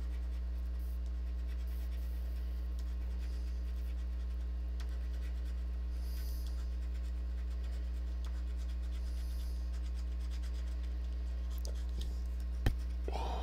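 A coin scratching the coating off a scratch-off lottery ticket in short rubbing strokes, over a steady low hum. A single sharp click sounds near the end.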